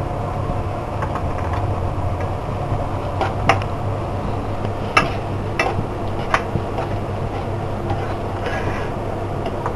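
Chopped onion frying in oil in a nonstick pan, stirred with a plastic spatula that knocks sharply against the pan a handful of times, over a steady low hum.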